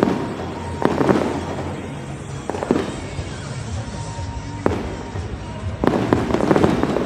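Fireworks bursting: single booms a second or two apart, then a quick run of bursts near the end, with music playing underneath.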